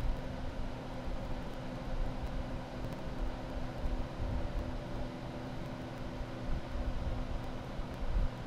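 Central air conditioning unit running steadily: an even rush of fan noise with a constant electrical hum and a low rumble that swells and fades.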